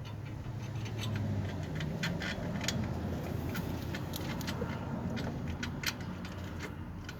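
Light metallic clicks and scrapes as a bolt is fitted by hand into the alternator mounting, over a steady low hum.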